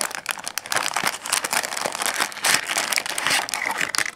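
Clear plastic parts bags crinkling and rustling against a cardboard box as they are pulled out and handled: a dense, irregular run of crackles.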